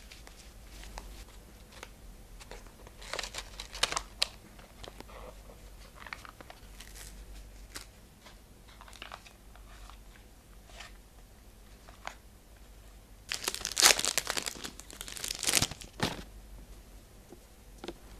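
Packaging of memo notepads crinkling and tearing as it is opened by hand, in scattered rustles with a louder burst of crinkling about two-thirds of the way through.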